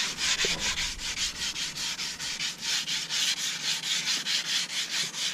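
Hand sanding with 180-grit paper, wetted, in quick back-and-forth strokes of about five a second, scrubbing runny black spray paint off a Nissan 300ZX's rear taillight panel.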